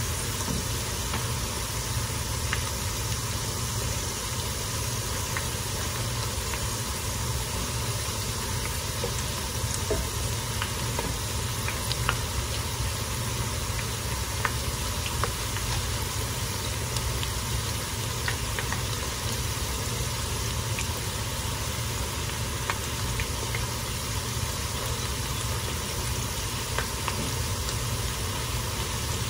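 Chips frying in a skillet of hot oil: a steady sizzle with scattered sharp pops and crackles, over a steady low hum.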